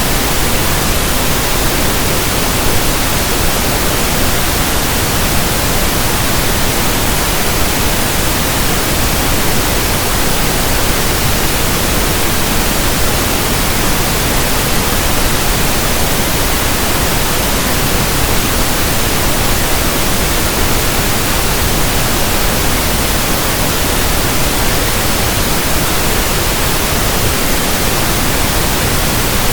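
Steady generated pink noise: an even, unbroken hiss spread across all pitches, with no change in level.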